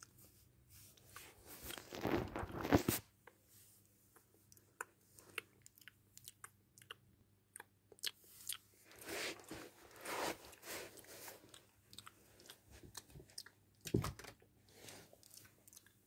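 Chewing and crunching mouth sounds of someone eating, in irregular bursts, the loudest about two to three seconds in.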